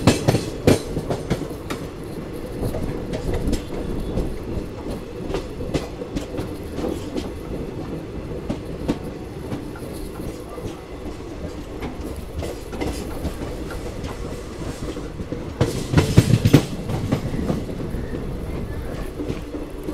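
Indian Railways sleeper coach rolling along the track, heard from its open doorway: a steady rumble of the wheels with irregular clicks and clacks as they cross rail joints and points. There is a louder burst of clatter and rumble about sixteen seconds in.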